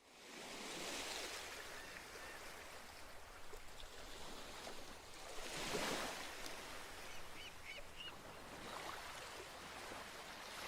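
Ocean waves washing in, fading up from silence at the start and swelling about every five seconds, with a few brief high chirps about two-thirds of the way through.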